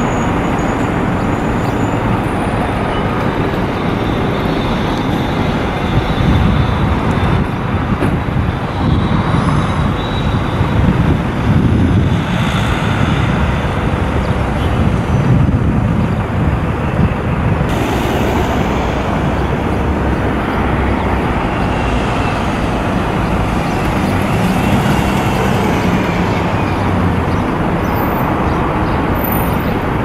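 Steady road traffic noise: a dense rumble of passing vehicles, swelling slightly louder for several seconds partway through.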